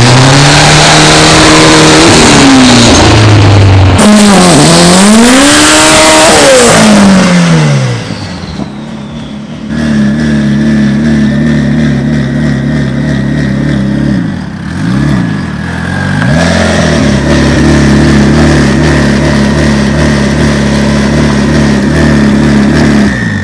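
Car engine revved hard during a burnout, with the tyres spinning. The engine pitch swings up and down twice over a loud tyre hiss, drops off, then is held high and steady with one brief dip, and cuts off suddenly near the end.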